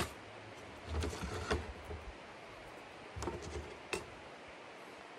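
Handling noises of food preparation: a sharp knock at the start, then two short clusters of knocks and rustles, about a second in and about three seconds in, the second ending in a sharp click.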